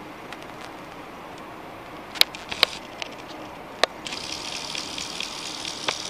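Handling noise from a camera held against a car's side window glass: several sharp taps and knocks, with a steady hiss starting about four seconds in.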